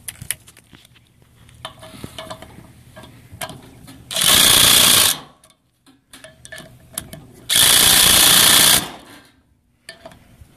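Cordless brushless impact driver hammering nipple cups tight into a Ford 6.0L diesel high-pressure oil rail, in two bursts of about a second each, with light metallic clicks of handling between them.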